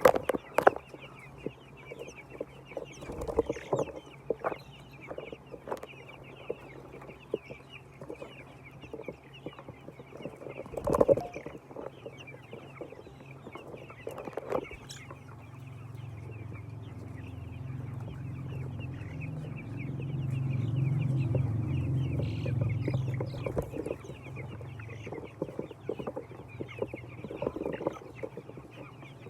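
A flock of poultry-farm chickens clucking and calling continuously, with scattered sharp knocks. A low hum swells from about halfway through and fades again a few seconds before the end.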